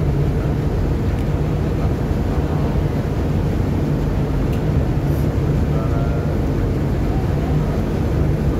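Steady low drone of the KM Sabuk Nusantara 101's engines while the ship is under way, even in level throughout.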